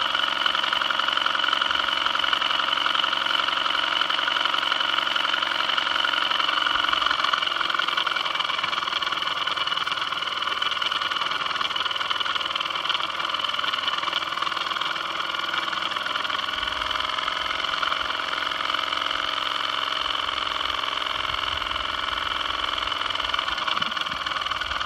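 Vintage live-steam toy engine with a brass boiler running steadily under its own steam, a continuous fast mechanical running sound that eases a little about two-thirds of the way through.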